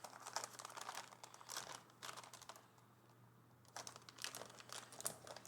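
Plastic wrapping crinkling as packed cables are handled, in two spells of crackling with a short pause in the middle.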